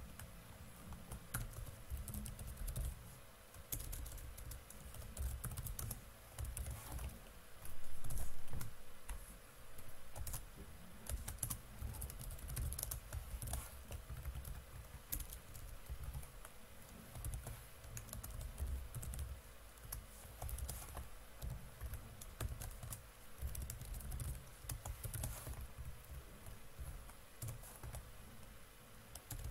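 Typing on a computer keyboard: irregular key clicks, with a louder low bump about eight seconds in.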